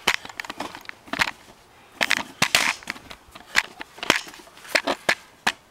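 Camera handling noise: irregular crunching scrapes and knocks, bunched about two seconds in and again near the end.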